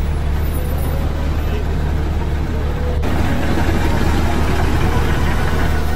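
Diesel engine of a Volvo articulated dump truck running under load as the truck pushes through deep mud, a steady low drone. The sound changes abruptly and grows louder about three seconds in.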